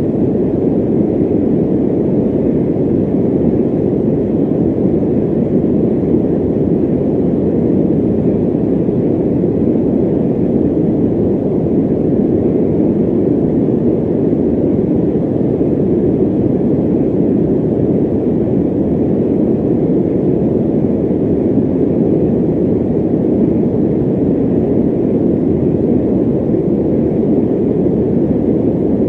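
Electric fan running steadily: a constant low whoosh of air with no tone, beat or change.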